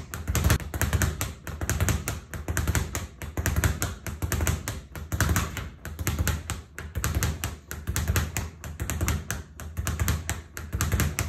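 A Title Boxing Super Speed Bag is punched continuously with alternating fists. It makes a rapid, even rattle of knocks as the leather bag rebounds off the wooden platform, with a deeper thud recurring in a steady rhythm.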